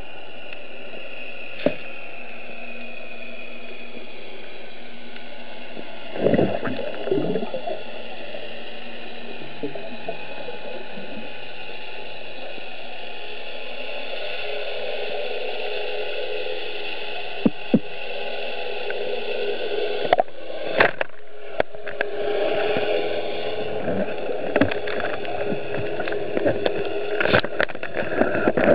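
Underwater ambience recorded through a camera housing: a steady hiss with faint drifting tones, a few sharp clicks, and a short burst of bubbling about six seconds in. In the last third the water noise grows into uneven crackling and sloshing as the diver moves.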